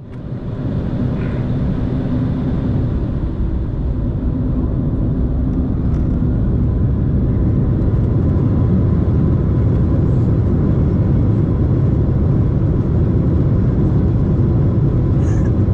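Embraer jet airliner's engines and rumble at take-off: a steady low roar that builds over the first few seconds, then holds.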